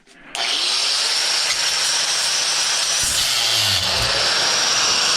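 Angle grinder starting up about a third of a second in, then running loudly and steadily as it cuts into metal, with a high-pitched grinding hiss.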